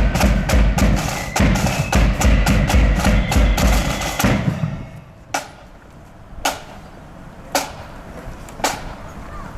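A marching flute band plays, with side drums and bass drum beating steadily under the flutes. The tune ends about four seconds in. After that, single sharp drum taps keep time about once a second.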